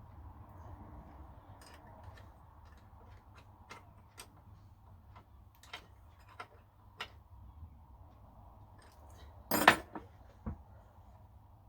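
Small metal objects being handled: scattered light clinks and taps, then one louder metallic clatter about nine and a half seconds in and a single knock just after, over a faint low hum.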